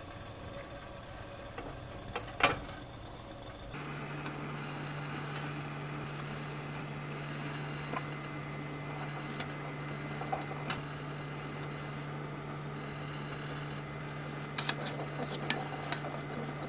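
Glutinous rice balls cooking in a small stainless steel saucepan of hot water, with a steady low hum and faint bubbling. There is a single sharp knock a couple of seconds in, and near the end a metal spoon clinks against the pot several times.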